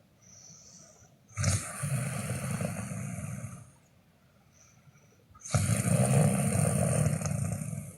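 Snoring: two long snores of about two seconds each, each starting suddenly, with a faint breath and quiet gaps between them.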